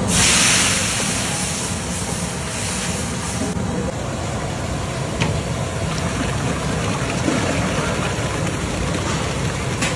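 Water poured into a large pot of hot oil and masala, setting off a loud hiss that is strongest at once and fades out over about three and a half seconds. A steady low rumble runs underneath.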